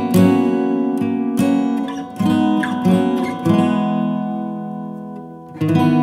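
Background music of strummed acoustic guitar chords; the chords ring and fade, and a fresh loud strum comes in near the end.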